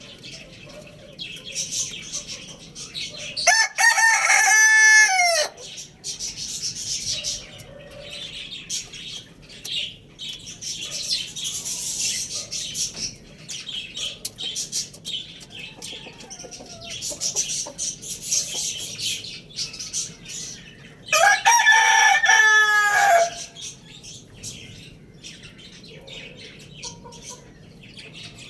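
A rooster crows twice, each crow about two seconds long with a held note that drops at the end, the two crows some seventeen seconds apart. Between the crows there is constant high chirping and occasional clucking.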